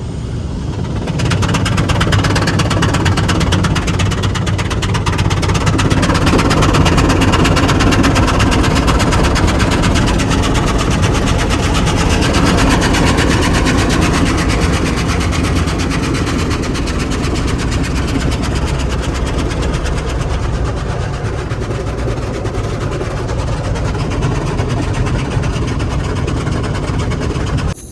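A loud, steady rushing noise with a low engine hum underneath, heard from inside a car. It builds up about a second in.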